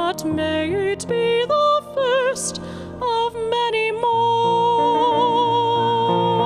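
Music: a singer with wide vibrato moves through several notes, then holds a long note from about four seconds in, over instrumental accompaniment.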